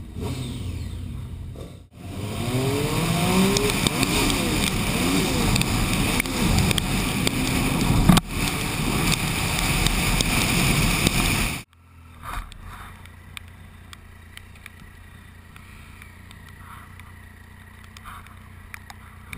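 Motorcycle engines revved hard again and again inside a tunnel, the pitch climbing and falling with each blip and echoing off the tunnel walls. About twelve seconds in it cuts off abruptly to a much quieter, steady engine running.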